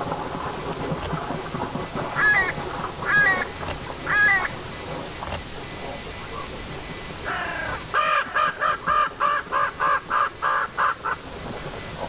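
Hooded crows cawing: three separate caws, then a fast run of about a dozen caws, some three a second, near the end. Under the first caws there is a steady hiss that drops away about two-thirds of the way through.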